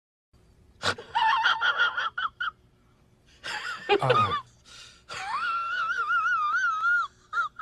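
High-pitched, voice-like squeals in several short bursts, then a longer warbling wail of about two seconds.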